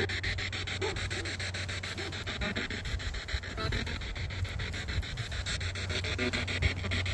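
Spirit box sweeping through radio stations: hissing static chopped into a rapid, even stutter over a steady low hum, with brief scraps of sound breaking through.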